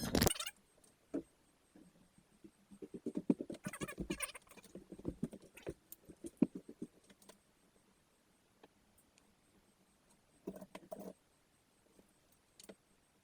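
Light irregular clicks, taps and rustles of small parts being handled, with a quick patter of ticks for a few seconds in the middle and a short cluster of clicks near the end.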